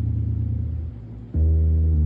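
Guitar played through an amplifier during a tone test: a sustained low note rings and fades, then about a second and a half in a new low note is struck and rings out.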